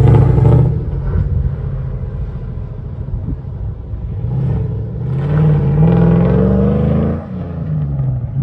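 M715 army truck's engine running under throttle as the truck pulls away, its note climbing as it accelerates. The note drops suddenly about seven seconds in, as at a gear change, then climbs again.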